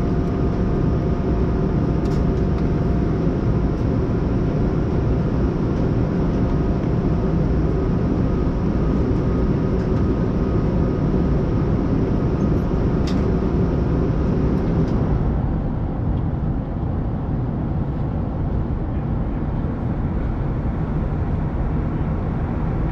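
Steady in-flight cabin noise of a Boeing 787-9 airliner: a continuous rumble of engine and airflow, with a couple of faint ticks. A little past the middle it turns softer and duller.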